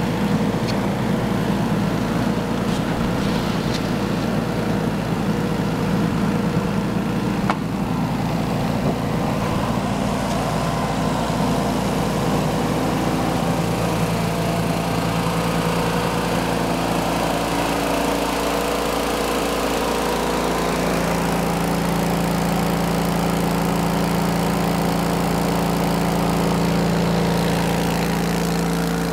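Engine running at a steady speed, driving the hydraulically powered belt conveyor of a Mid State field/nut elevator.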